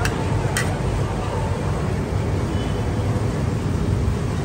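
Steady low rumble of street ambience, with two sharp clicks in the first second.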